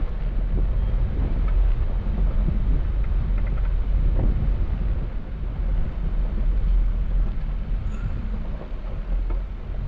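Ford F-150 pickup truck with a truck camper driving slowly along a gravel campground road: a steady low rumble of engine and tyres on the gravel.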